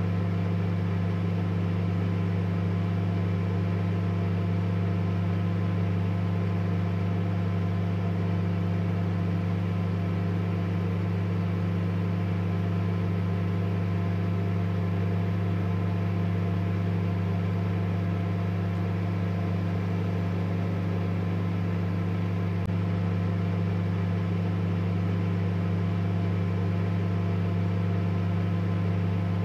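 A steady, unchanging low hum with a strong deep drone and a second tone just above it.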